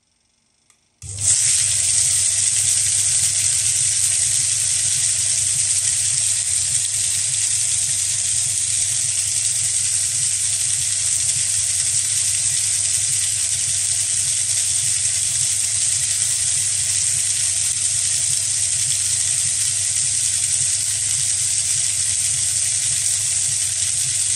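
Mini rotary tumbler running a wet wash: brass cartridge cases churn in water with detergent and citric acid inside the turning drum, a steady hiss-like rush over the motor's low hum. It starts abruptly about a second in.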